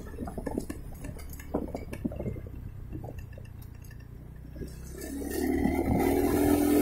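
Motorcycle moving at low engine speed with irregular clinks and rattles. About five seconds in, the engine picks up and grows steadily louder.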